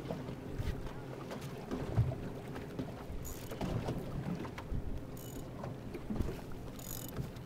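Boat motor idling with a steady low hum, with irregular knocks of small waves against the hull. Three short high hisses come a couple of seconds apart in the second half.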